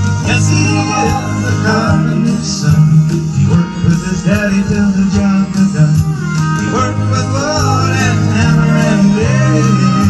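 Country song: a man singing into a microphone over guitar accompaniment with a steady bass line.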